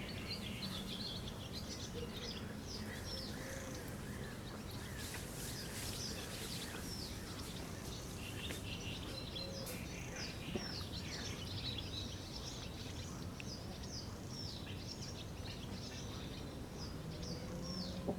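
A songbird singing a long run of quick, short, downward-sliding chirps over a steady background hiss.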